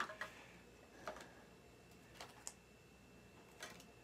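A few faint, scattered clicks and rustles of hands handling a trading-card pack's paper sleeve.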